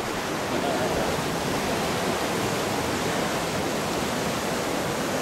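Rushing water of a river-rapids rafting ride, a steady churning noise heard from aboard the moving raft.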